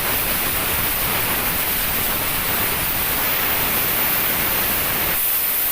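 Plasma cutter cutting metal: a steady, loud hiss of the arc and air stream. About five seconds in, the lower part of the hiss drops away, leaving a thinner, high hiss.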